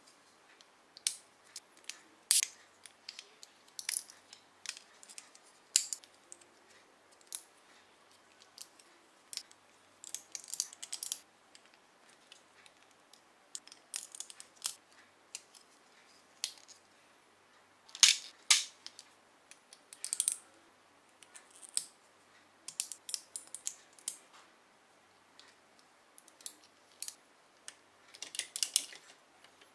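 LEGO plastic bricks and joint pieces being pressed together and handled: scattered, irregular sharp clicks and snaps, the loudest about 18 seconds in.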